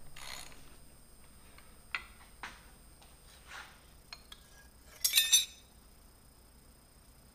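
Metal pieces being handled on a milling machine table: a soft rustle, a few light clicks and knocks, then a quick cluster of sharp metallic clinks about five seconds in as metal is set against metal.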